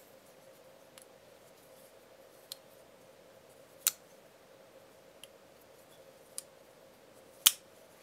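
Steel side-lock folding knife clicking as it is worked open and shut: two sharp metallic clicks, about four seconds in and near the end, as the blade snaps open into its lock, with lighter clicks between them.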